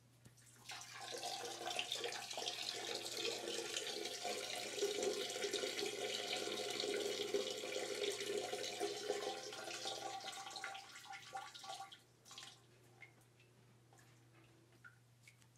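Steady rush of running water, like a tap running, starting about a second in and dying away near the end.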